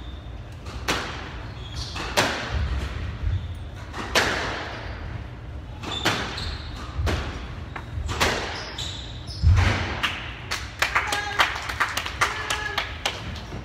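Squash rally: the ball cracking off rackets and slapping against the walls at irregular intervals, with one heavy thud about two-thirds through. A cluster of sharp squeaks near the end, typical of court shoes on a wooden floor.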